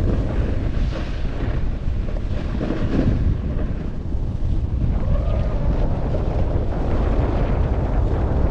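Loud wind rushing and buffeting over the microphone and a North Face jacket at snowboarding speed, a steady low rumble with gusts.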